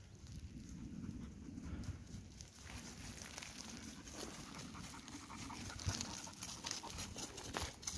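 German Shorthaired Pointer panting as it hunts through dry scrub, with scattered crunches and crackles of steps on twigs and leaf litter over a low rumble.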